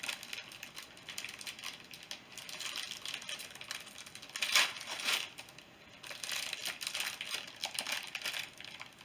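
Plastic wrapper on a marshmallow treat crinkling as it is handled and pulled open. The crackling is irregular, loudest about halfway through, with another run of it in the second half.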